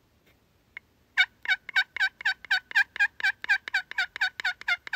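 Friction turkey call (pot call worked with a wooden striker) making a long, even run of turkey-like yelps, about four a second, starting about a second in.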